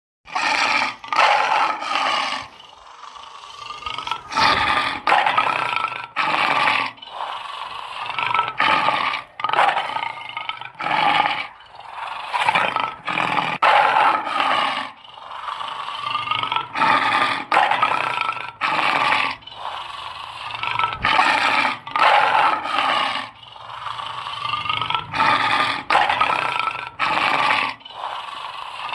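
An animal calling over and over, about one loud pitched call a second, with a few short pauses between runs of calls.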